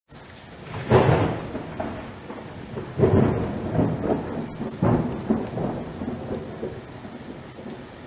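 Thunderstorm sound effect: three rolling claps of thunder about two seconds apart, each dying away slowly, over a steady hiss of rain.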